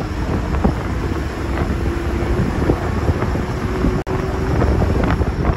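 Moving bus heard from inside, its engine and road noise running as a steady low rumble with a held drone and scattered rattles, with wind buffeting the microphone at the open window. The sound cuts out for an instant about four seconds in.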